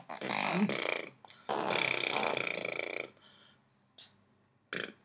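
Baby blowing spluttering raspberries with the lips: a short burst at the start, then a longer one of about a second and a half, followed by two brief lip smacks near the end.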